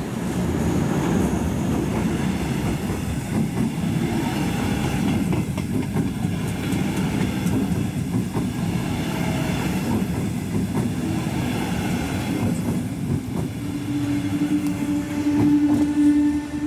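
DB Class 146 electric locomotive and its double-deck regional coaches rolling in along the platform, with steady wheel-on-rail noise and clicks as the coaches pass. A steady low tone sets in near the end.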